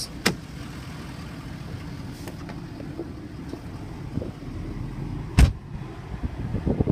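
Pickup truck door: a sharp latch click as the door opens, then one loud thump about five seconds in as the door is shut, over steady low background noise.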